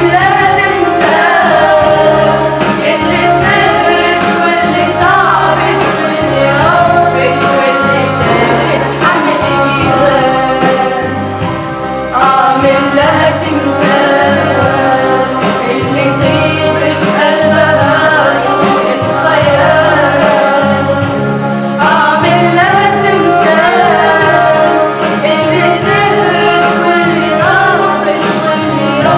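A group of girls singing an Arabic song about their mother over an instrumental backing with a steady, repeating low beat.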